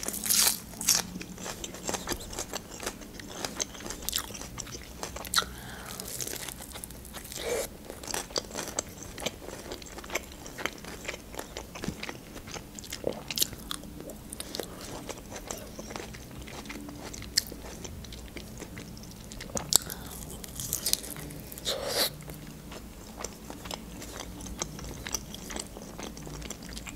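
A person eating close to the microphone: bites and chewing of fried khinkali and green onion. Crisp crackles are scattered throughout, with a few louder crunches.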